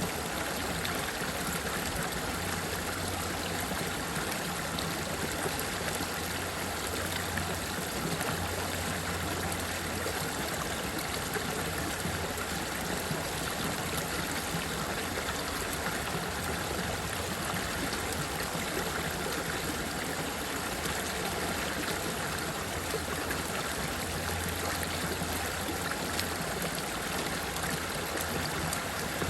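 Running water rushing steadily and evenly, without a break.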